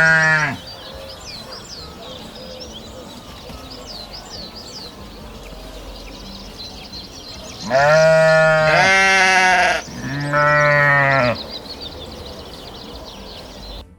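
Sheep bleating: one loud bleat at the start, then a cluster of bleats between about eight and eleven seconds in, two of them overlapping. A faint high chirping runs underneath.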